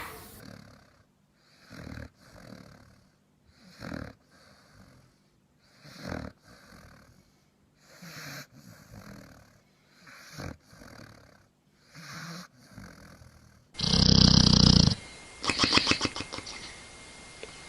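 A dog snoring in slow, even breaths, about one every two seconds, each a sharper snore followed by a softer one. Near the end a much louder snore cuts in, then a fast fluttering rattle.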